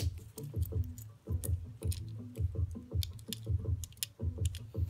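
Music playing from a radio with a steady bass beat, with small sharp clicks of plastic LEGO pieces being handled and fitted together.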